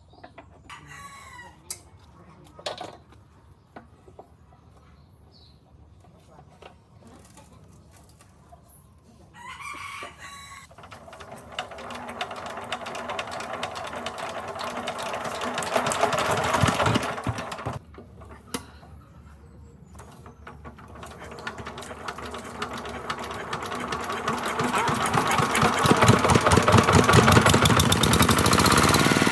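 A rooster crows near the start and again about ten seconds in. Then the rebuilt Kawasaki Z1100 air-cooled inline-four engine starts and runs, growing louder, cuts out about 18 seconds in, and is started again about two seconds later, running louder than before.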